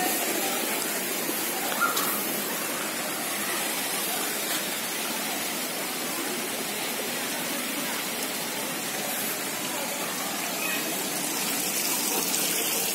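Steady splashing of water from a tiered garden fountain spilling over its basins into the pool below.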